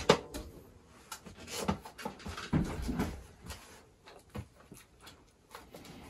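A puppy's paws knocking and scrabbling on a plastic folding step stool as it climbs onto it, the stool clattering: two sharp knocks at the start, a burst of knocks and scuffs in the middle, then a few soft taps.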